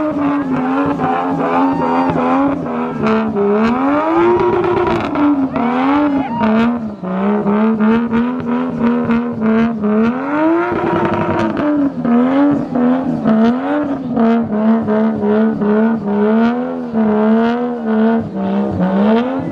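Car engine revved hard and held at high rpm, its pitch rising and falling in waves about once a second, with two bigger swells, as if being shown off for a crowd.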